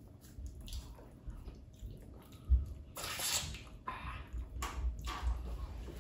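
Wet, squelching eating sounds: fingers scooping slimy okra soup and amala, and mouths chewing, in several short bursts.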